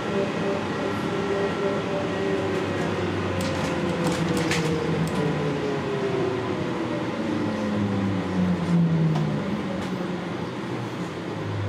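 Interior sound of an NAW trolleybus under way: the electric traction drive whines, and the whine falls steadily in pitch over several seconds as the bus slows behind traffic. Under it run road and body rumble, with a few sharp clicks about four seconds in.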